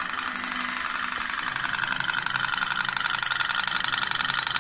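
Tin pop-pop toy steam boat, heated by a burning wick, running on water with a rapid, even putt-putt from its boiler.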